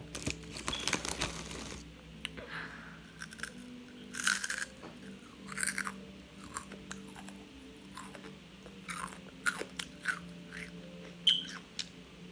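A person biting and chewing a crunchy red-orange snack, with sharp irregular crunches.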